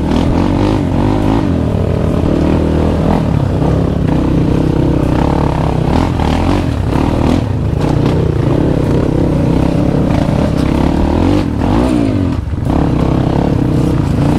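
Dirt bike engine running under load off-road, its revs rising and falling again and again as the throttle is worked.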